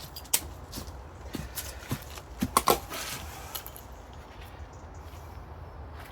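Steel raised-bed panels being handled and knocked into place: a few sharp knocks and clanks, the loudest a close pair about halfway through, followed by quieter shuffling.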